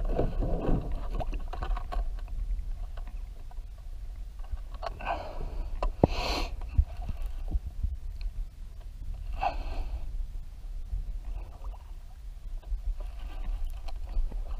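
Kayak moving on the water under paddle: a steady low rumble with dull thumps from the hull, and a few brief splashes of water.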